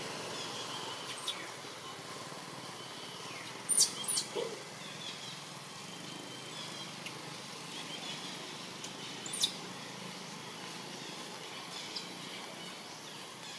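Outdoor forest ambience: a steady background hiss with a faint high drone, and a few short, sharp, high-pitched bird chirps about a second in, around four seconds in (the loudest, a quick cluster) and again near nine and a half seconds.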